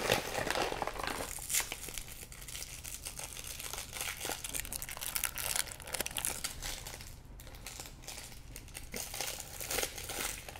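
Crinkling of chocolate wrappers being handled and pulled open by hand, in irregular crackles.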